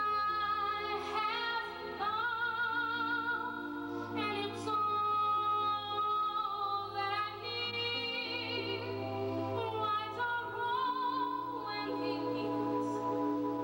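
A woman singing solo into a microphone, holding long notes with vibrato, over sustained instrumental accompaniment with a steady low bass.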